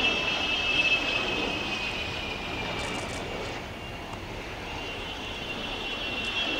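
Jet aircraft engine whine as the jets pass: a high whine that drops slightly in pitch and fades, then comes back near the end.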